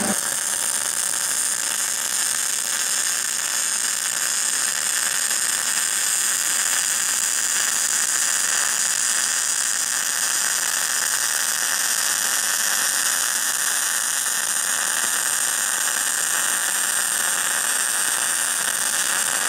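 MIG welding arc from a Hobart Handler 187 feeding .030 wire at near-maximum settings, a steady, even hiss as the torch pushes the puddle along a fillet joint on 3/8-inch steel plate.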